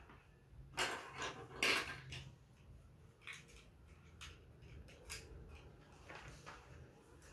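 Small plastic building-block pieces clicking and rattling as they are handled and snapped together, loudest in a cluster about a second in, then scattered light clicks.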